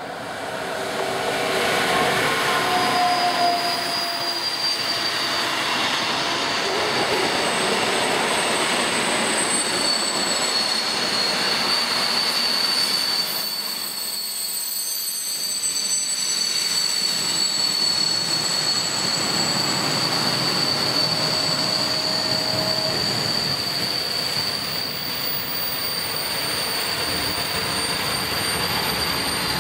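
Container freight train hauled by a Siemens EuroSprinter ES64F4 electric locomotive passing close by. The locomotive goes by in the first seconds, then the wagons run past in a long, loud rumble of wheels on rail, easing briefly about halfway. A steady high-pitched squeal runs through the second half.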